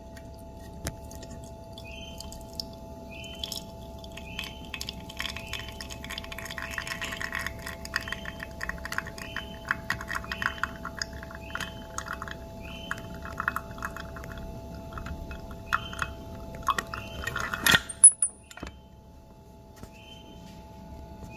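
Espresso running from the bottomless portafilter of a Flair manual lever espresso maker into a ceramic cup: a fine crackling trickle that builds about six seconds in and goes on for about ten seconds. A single loud knock comes near the end.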